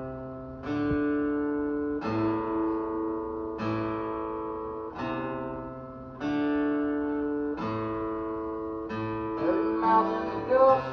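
Acoustic guitar intro: a chord is strummed about every second and a half and left to ring out. Near the end a voice starts singing over it.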